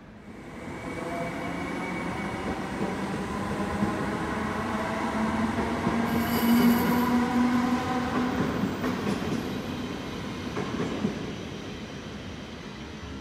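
NS intercity electric train running along the platform past the listener. Its sound swells, peaks about six to seven seconds in with a humming tone and a brief high squeal from the wheels, then fades, with a few clicks of the wheels over the track.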